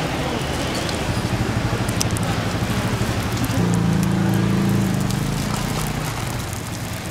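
Oil sizzling on a flat griddle as balls of sorghum hotteok dough fry. A low droning hum sits underneath and swells in the middle.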